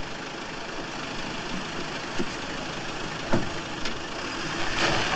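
Minivan engine running steadily, with a few short knocks on top, the clearest about three and a half seconds in.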